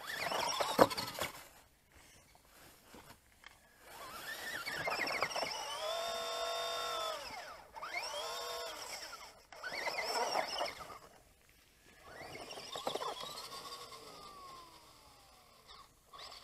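LaTrax Teton 1/18 RC truck's electric motor whining in repeated bursts, the pitch rising and falling with the throttle as it crawls over rocks. A sharp knock about a second in is the loudest sound.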